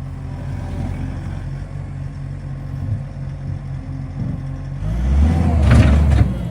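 Skid steer loader's engine running steadily, then revving up hard about five seconds in.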